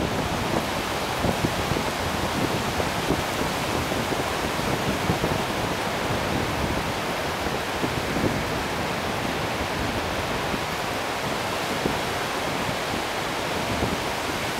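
Sea surf breaking on a wide, flat sandy beach: a steady, unbroken hiss of waves.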